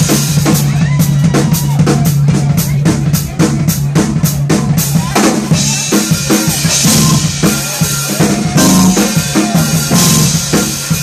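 Live funk-jazz band playing, with the drum kit out in front: busy kick and snare strokes over a steady low bass note. Cymbals wash in from about halfway.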